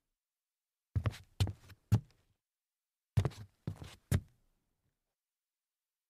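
Sneaker footsteps on a hollow wooden floor, turning around: two sets of three heavy steps, each step about half a second apart, the first set about a second in and the second about three seconds in.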